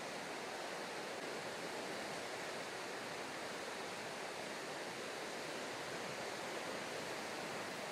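Steady sea ambience: an even rushing hiss of rippling seawater, with no separate wave breaks.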